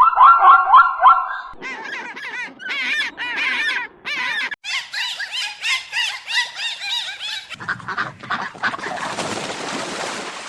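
Waterfowl calling: a repeated series of short rising calls, then about a second and a half in a flock honking over one another in a dense chorus. In the last three seconds a rushing noise rises under the calls.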